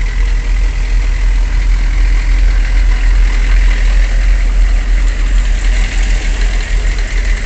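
An eight-wheeled armoured personnel carrier's engine idling close by, a steady, loud low rumble.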